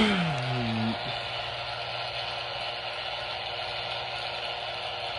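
Steady hiss of radio or TV static with a faint hum, after a short falling tone in the first second.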